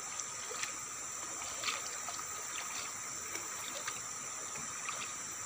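Water trickling and splashing at the side of a wooden canoe as a paddle is worked in the river, over a steady high insect drone, with a few light clicks.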